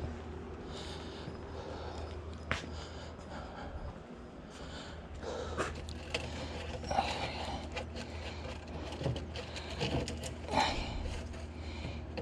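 A person's heavy breathing close to the microphone, in repeated breaths, over a steady low hum. A few sharp clicks or knocks, the loudest about two and a half seconds in and near the end.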